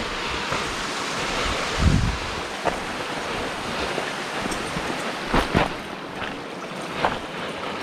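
Creek water rushing steadily, with a few short, sharp knocks about two seconds in, midway and near the end.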